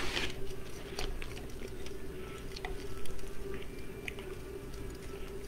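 Faint handling noises, light rustles and small scattered clicks, as black wire is twisted around a metal wreath frame, over a steady low hum.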